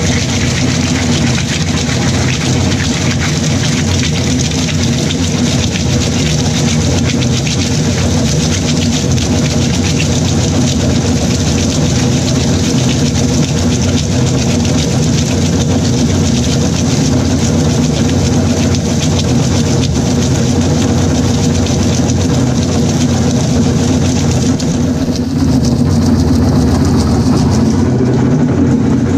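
ZERMA GSL 180-series slow-speed granulator grinding red plastic caps through an 8 mm screen: a steady mechanical hum from the geared-motor-driven rotor under a dense, crackling clatter of plastic being cut. About 25 seconds in, the crackle thins as the caps are used up and the machine runs on nearly empty.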